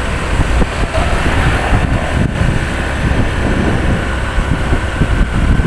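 Steady wind noise on the microphone, heaviest in the bass, with road and engine noise from a moving vehicle.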